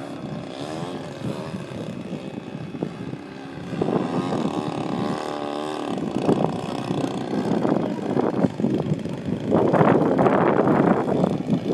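Radio-controlled model airplane's motor and propeller in flight, its pitch wavering up and down as it passes and turns, loudest near the end as it comes close.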